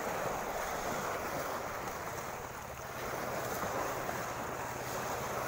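Small fishing boat's motor running steadily with a low hum, under wind buffeting the microphone and water rushing past.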